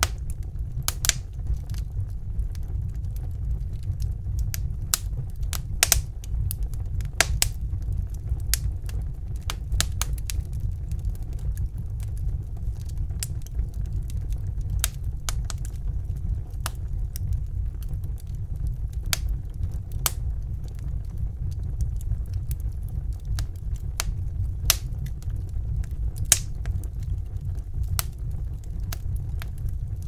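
Wood fire crackling, with irregular sharp pops over a steady low rumble; a few pops stand out louder, around six seconds in and again near twenty and twenty-six seconds.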